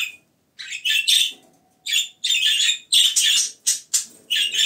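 Budgerigars giving loud, harsh chirping calls in quick bursts, about ten short calls with brief gaps between them.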